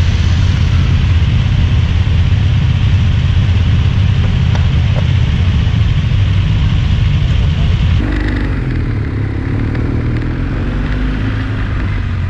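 Motorcycle engine running at a steady idle with a low, even rumble. About eight seconds in the sound changes abruptly, and the engine note rises and falls as the bike pulls away.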